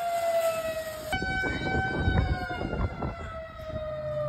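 Outdoor tornado warning siren sounding one long wail whose pitch slowly sinks, over low wind rumble on the microphone and a few scattered knocks.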